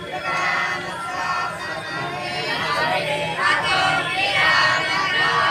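A crowd of many voices sounding together at once, growing louder about three seconds in.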